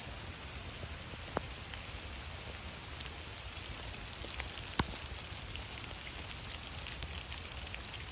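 Rain falling in a forest: a steady patter with scattered drips. Two sharper ticks stand out, one about a second and a half in and a louder one near five seconds.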